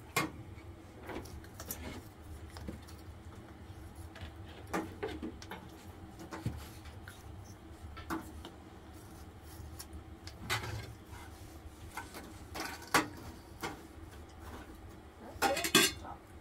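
Scattered clinks and knocks of metal bowls and kitchen utensils being handled on a floor, over a low steady hum, with a cluster of louder knocks near the end.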